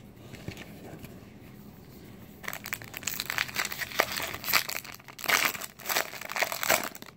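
Foil trading-card pack wrapper crinkling as hands tear it open. It is quiet at first, and the dense crackling starts about two and a half seconds in.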